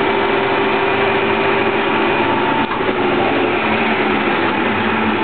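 1K62 engine lathe running, its motor and gearbox giving a steady mechanical hum with a few held whining tones. The sound dips briefly about two and a half seconds in.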